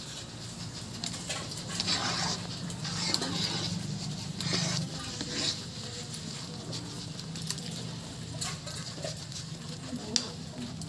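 A steel ladle stirring a thick, steaming rice-flour and meat ghonto in a large metal pan: irregular wet slaps and splatters as the batter is lifted and poured back, with a few sharp clicks.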